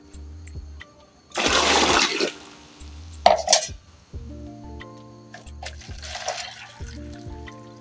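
Water poured from a one-litre cup into a bowl: a splashing pour about a second and a half in that lasts about a second, a clink of the cup soon after, and a softer pour near the end. Background music plays underneath.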